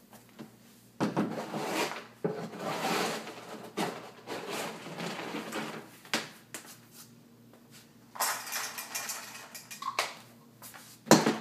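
Kitchen clatter: dishes and cutlery being handled, with short scrapes and clinks and a sharp knock near the end.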